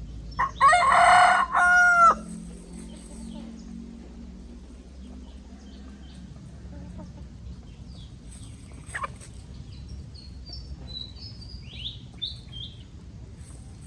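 A rooster crowing once, loudly, about half a second in, the crow lasting about a second and a half. Faint short high chirps follow near the end.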